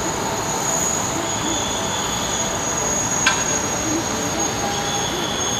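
Steady high-pitched whine over a rumbling roar of airport apron machinery around a parked airliner, with one sharp click a little past the middle.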